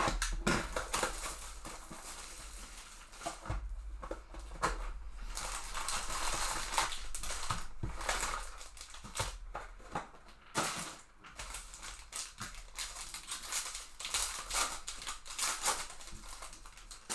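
Plastic wrapping crinkling and tearing, with scattered sharp clicks and rustles, as a sealed hobby box of trading card packs is opened and its packs are ripped open.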